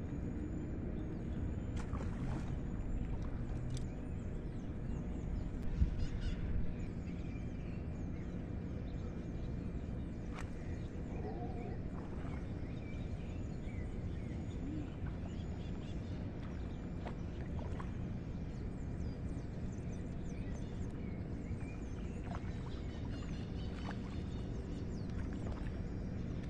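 Steady low outdoor background noise with scattered faint clicks and a few short, high bird chirps.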